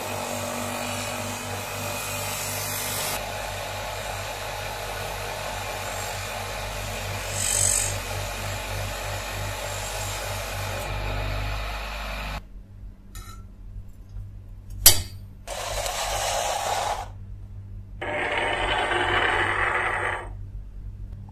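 Bare electric motor with a polishing wheel on its shaft running with a steady hum while a steel knife blade is held against the wheel, a grinding hiss that swells briefly about seven seconds in. About twelve seconds in the motor sound cuts off; after it come a single sharp knock and two stretches of rustling hiss.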